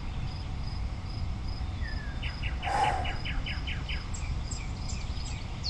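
Birds singing: a fast trill of short notes about two seconds in and a few high notes later, over a high chirp repeating about twice a second, with a steady low rumble underneath.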